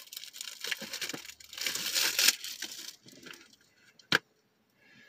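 Plastic packaging of a Blu-ray case crinkling and rustling as it is handled, loudest about two seconds in, then a single sharp click about four seconds in.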